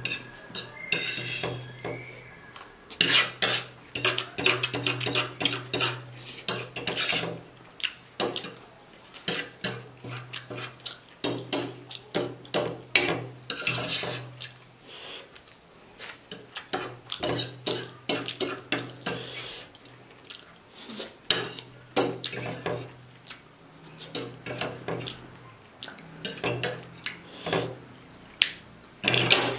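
Metal fork and spoon clinking and scraping against a ceramic plate, in irregular repeated strokes, as the last noodles are gathered up.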